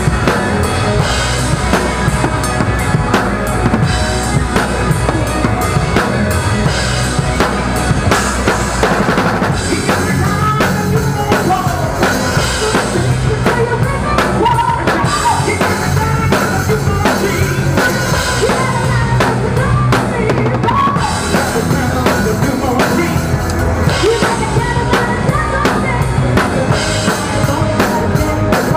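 Rock drum kit played live and hard, heard close up: bass drum, snare and cymbals driving a steady beat, with the rest of the band's music underneath.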